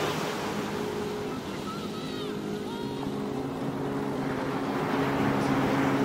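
Ocean surf washing steadily, with soft background music underneath. A few short chirps come about two to three seconds in.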